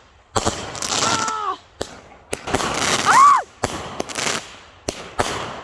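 Consumer fireworks going off: several sharp bangs and spells of crackling hiss about a second long. Twice, someone lets out a rising-and-falling whoop over them, the louder one about three seconds in.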